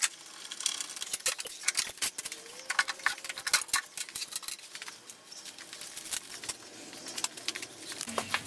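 Irregular light clicks and taps from hands handling a Hercus 9-inch lathe's cast iron bed and stand, with small metal parts clinking now and then.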